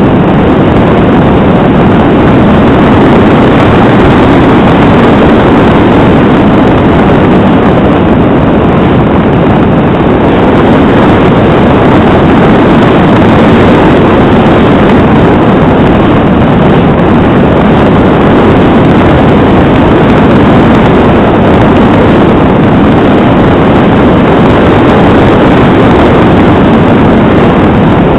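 Loud, steady drone of a small aircraft in flight, its engine and propeller mixed with rushing air, heard from a camera mounted on the wing.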